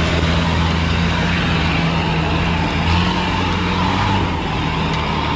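Lifted off-road pickup truck's engine pulling under load up a steep dirt climb, holding a steady deep drone at fairly constant revs.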